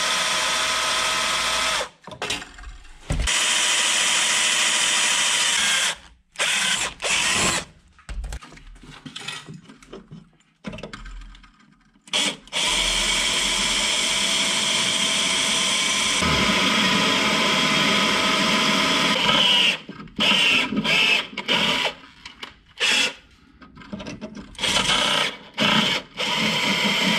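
Power drill with a 1/8 inch bit drilling pilot holes into spot welds in a car's rocker panel, working through the thicker subframe metal behind. It runs in long steady stretches with pauses, then in short on-off bursts near the end.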